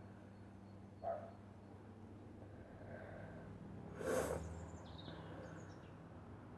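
A person sneezing once, a short sharp burst about four seconds in, after a brief catching breath about a second in: a dust-triggered sneeze.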